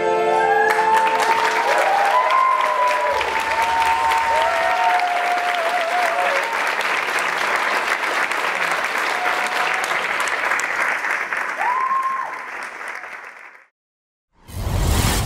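Audience applauding and cheering, with whoops and whistles, as the music ends under a second in. The applause fades out near the end and is followed by a short whoosh.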